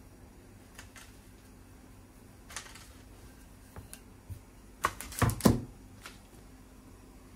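Wooden rolling pin working dough on a wooden cutting board, with a few light taps and a soft scrape. About five seconds in come several sharp wooden knocks in quick succession as the pin is set down on the counter.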